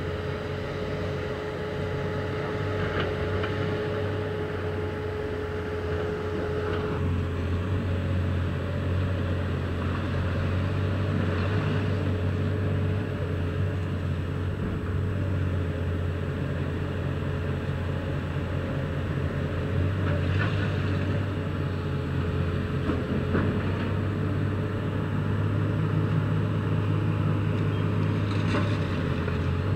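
Komatsu PC360LC hydraulic excavator's diesel engine running steadily under working load, with a steady whine that stops about seven seconds in. A few scattered knocks sound over the engine.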